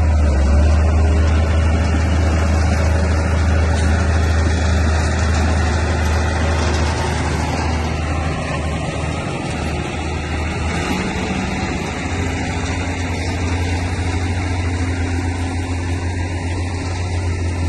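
A bulldozer's heavy diesel engine running steadily with a deep drone, wavering a little about halfway through before settling again.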